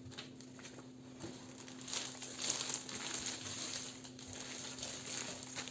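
Packaging rustling and crinkling as it is handled, irregular and a little louder from about two seconds in.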